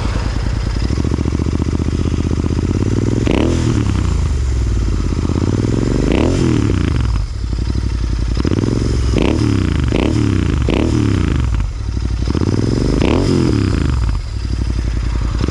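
Royal Enfield Interceptor 650's 648cc parallel-twin engine, breathing through an aftermarket AEW exhaust, idling after a start while the throttle is blipped about six times, each rev rising and dropping back.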